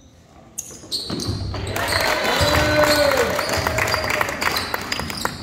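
Gym sounds of a basketball game: a basketball bouncing on the court, with voices echoing in the hall. It comes in loudly about a second in, after a quiet moment.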